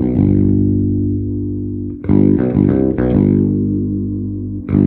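Squier Bass VI played on its bridge (treble) pickup with the tone partly rolled back: strummed chords in a gritty, overdriven tone, each left to ring out, with a new chord struck about two seconds in and another near the end.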